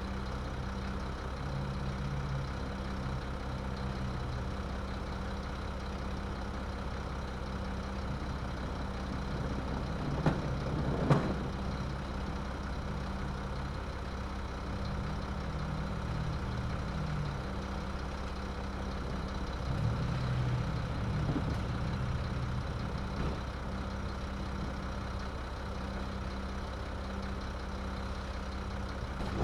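Garbage truck engine idling steadily with a low hum, with two sharp knocks about ten and eleven seconds in.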